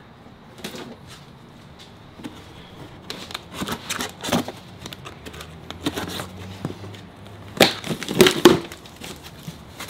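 Cardboard boxes being handled and pulled open: scrapes, rustles and knocks of cardboard, in a cluster about three seconds in and louder again near the end.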